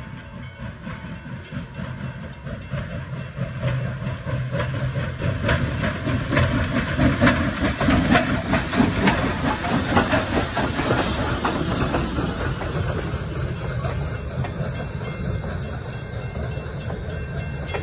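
WMSR 1309, a steam articulated Mallet locomotive, passing at close range with hissing steam, its sound building to a peak about eight seconds in as the engine goes by. Then the passenger coaches roll past with a steady clickety-clack of wheels over the rail joints.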